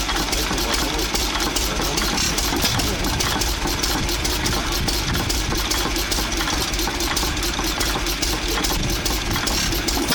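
Antique C.H.&E. Mfg. Co. stationary gas engine with twin flywheels idling steadily, with an even mechanical clatter.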